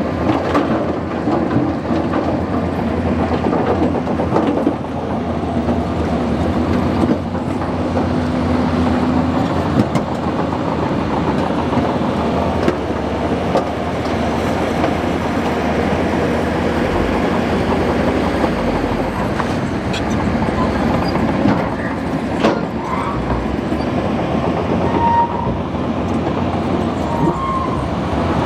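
Bulldozer working: its heavy diesel engine running steadily under a continuous clatter of steel tracks, with scattered knocks.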